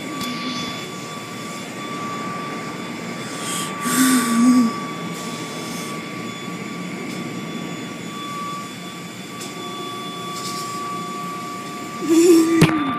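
Car wash machinery running: a steady rushing noise with a constant whine over it. There is a sharp click near the end.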